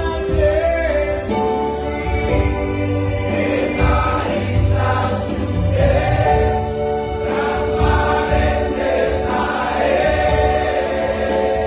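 A Batak Christmas hymn sung in three-part vocal harmony over instrumental accompaniment, the voices holding long notes.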